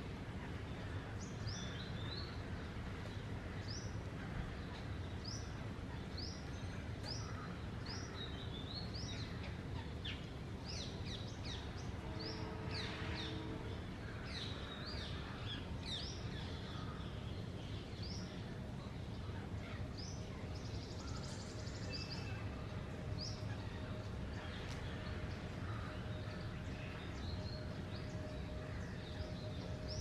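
High-pitched chirping: many short, rising chirps in irregular runs over a low, steady outdoor rumble.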